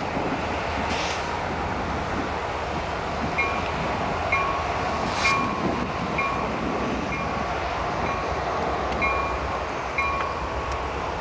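Steady low rumble of idling CSX diesel locomotives in a rail yard, with wind noise. From about three seconds in until near the end, a high two-tone ding repeats about once a second.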